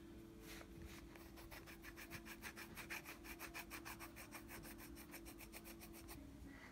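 Faint scratching of a colored pencil on paper, in rapid, even back-and-forth shading strokes, about six a second. The pencil is brown.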